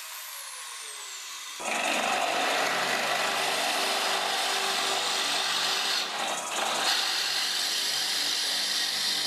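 A power tool working wood. A motor's pitch falls away over the first second and a half, then a steady cutting noise sets in, with a short dip about six seconds in.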